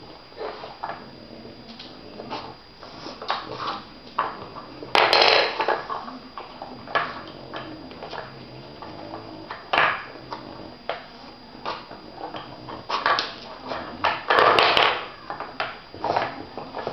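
Hard plastic cups of a wooden dog puzzle board knocking and rattling as two French bulldogs nose and shove them, in irregular clicks and knocks, with loud clatters about five seconds in and again about fourteen seconds in, and a sharp knock near ten seconds, along with the dogs' sniffing.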